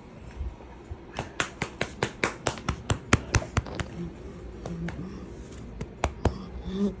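A quick run of sharp taps, about five a second, starting about a second in and thinning to a few scattered ones after about four seconds.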